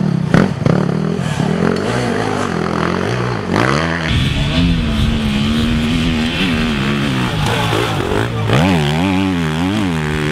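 Enduro motorcycle engine revving, its pitch rising and falling again and again, with quick repeated blips of the throttle in the last couple of seconds.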